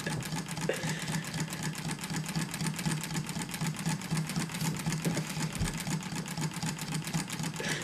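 Homemade Stirling engine running fast, its crankshaft and flywheel mechanism clicking in a rapid, even rhythm. It is running with no counterweight on the flywheel and is not slowing down.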